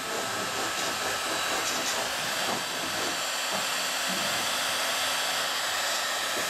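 Electric heat gun blowing steadily, its hot air aimed at a thin wooden strip to soften the wood for bending around a form.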